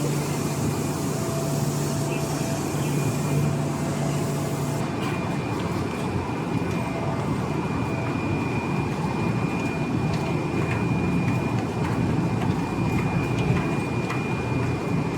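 Busy commuter rail station platform ambience: a steady wash of crowd and train noise. A low steady hum stops about five seconds in, and a thin high tone runs through much of it.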